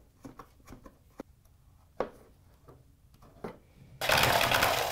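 A few light clicks and knocks from handling the plastic enclosure and tool. Then, about four seconds in, a cordless impact driver with a step drill bit starts up loudly, cutting a knockout hole through the top of the plastic switch enclosure.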